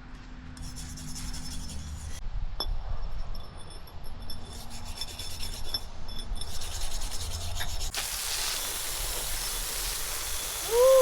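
Rust being scrubbed off a steel hatchet head by hand, with irregular rubbing strokes. About eight seconds in it gives way to a steady hiss, and a short, loud squeak comes at the very end.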